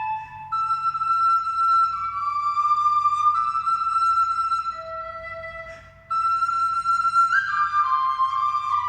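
Instrumental music: a flute-like melody of long held notes over a low steady hum, which fades out about six seconds in and starts again at once.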